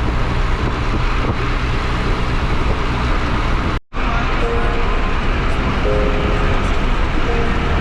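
Car engine running steadily with road and traffic noise, cut off abruptly about halfway through and then resuming.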